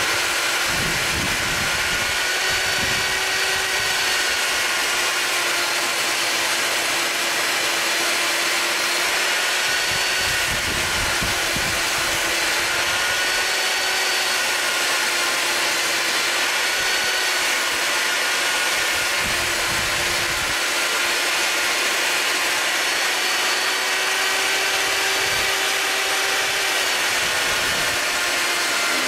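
Skil TS6307-00 10-inch jobsite table saw with a 40-tooth blade running steadily while ripping a 4.5-inch strip from 3/4-inch MDF sheet. It is a constant motor whine and blade noise that wavers slightly in pitch under the load of the cut.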